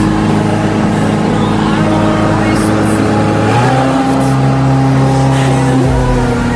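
Light aircraft's piston engine and propeller running steadily, heard from inside the cabin in low flight. The engine note steps up in pitch a little over halfway through as the engine speeds up.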